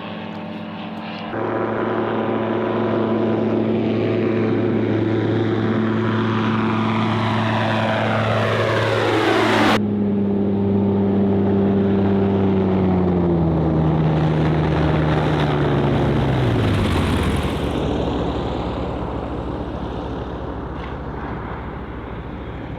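Two microlight aircraft flying low past, their engines and propellers droning with a pitch that drops as they go by, then fading as they move away.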